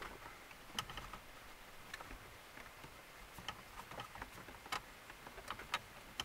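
Faint, irregular clicks and ticks of a T20 Torx driver turning out a screw from plastic dashboard trim, with the tool knocking lightly against the plastic.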